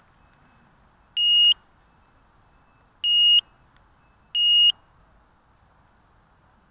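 Onboard piezo beeper of a crashed NightHawk 250 racing quadcopter, its motors stopped, sounding three short high-pitched beeps spaced about one and a half seconds apart.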